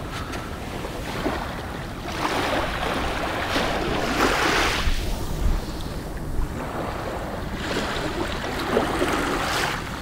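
Small waves washing in over a shallow sandy shore. One wash swells about two seconds in and another builds near the end, over a low rumble of wind on the microphone.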